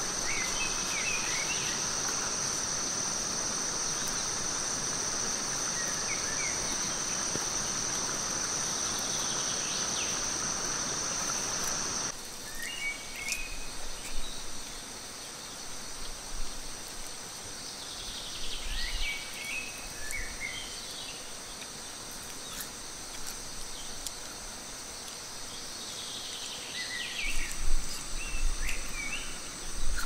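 Steady high-pitched trilling of a night insect chorus, crickets and cicadas, with short chirping calls repeating over it. The level drops suddenly about twelve seconds in, and a few brief knocks and handling sounds come later.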